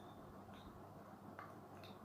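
Near silence: room tone with three or four faint, light clicks.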